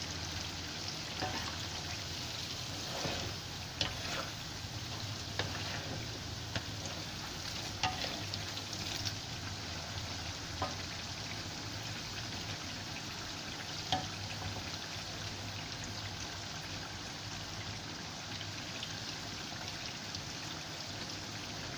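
Crushed garlic deep-frying in oil in an aluminium wok: a steady sizzle, with a few sharp clicks as a spatula stirs it now and then, mostly in the first half.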